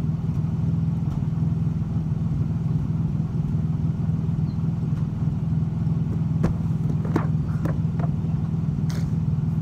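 A steady low hum, like a motor running, throughout, with a few light knocks about six to nine seconds in.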